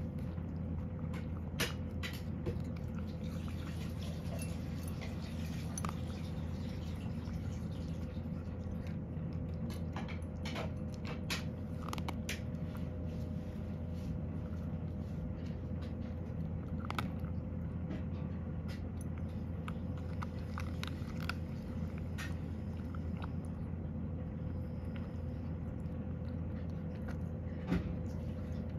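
A cat crunching the last pieces of dry kibble and nosing and licking a ceramic bowl: scattered crunches and clicks that thin out about halfway through as the bowl empties, over a steady low hum.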